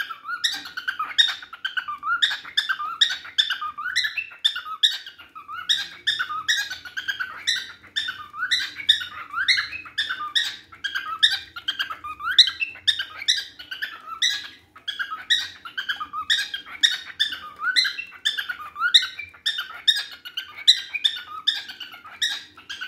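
Cockatiel singing: a continuous string of short whistled notes, many sliding up in pitch, repeated over and over in phrases.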